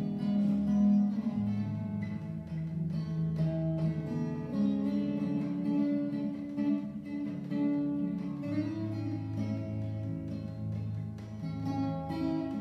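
Solo steel-string acoustic guitar played as an instrumental, with plucked melody notes over a moving bass line.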